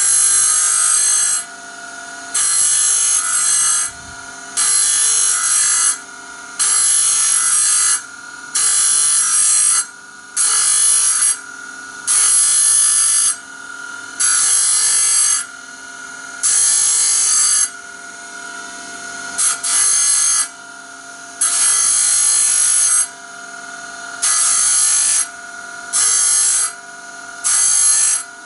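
Powered grinder running steadily, biting into a steel band saw blade in short grinding passes, about one every two seconds, to cut new teeth. The passes are kept brief so the tooth tips don't overheat and burn.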